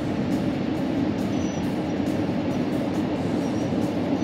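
Steady low rumble of a pickup truck driving across lake ice, heard inside the cab: tyre and engine noise with faint, regular ticks over it.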